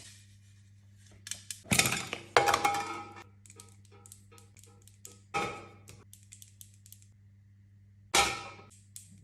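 Cosmetics packaging being unboxed and handled: a few sharp knocks as items are set down, with many small clicks and clinks in between, over a faint steady low hum.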